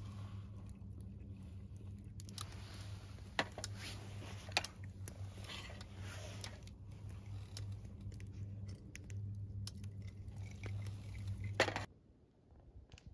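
Close eating sounds: chewing with small scattered clicks, over a steady low hum. The sound cuts off abruptly about twelve seconds in.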